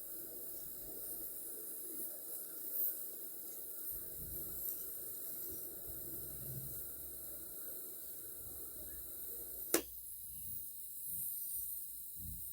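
TIG welding arc running with a steady hiss. A sharp click comes near the end, after which a thinner hiss carries on.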